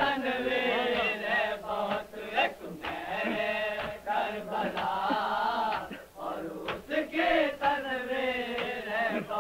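A group of men chanting an Urdu salam (devotional elegy) together in long sung phrases, on an old tape recording that sounds muffled, with nothing in the top end.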